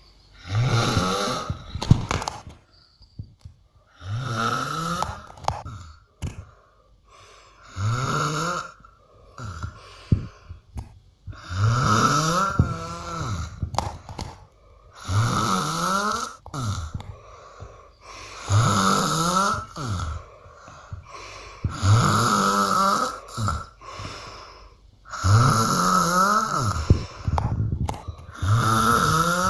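A person snoring, about eight long snores spaced roughly three to four seconds apart, each rising and falling in pitch, with quiet breaths between.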